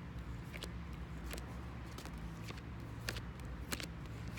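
A deck of tarot cards being shuffled by hand: soft, irregular clicks and flicks of the cards over a steady low hum.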